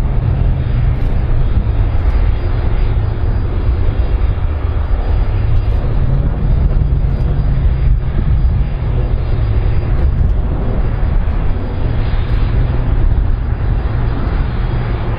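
Twin jet engines of an Airbus A310 airliner running on the ground, a loud, steady, deep rumble with a rushing noise over it.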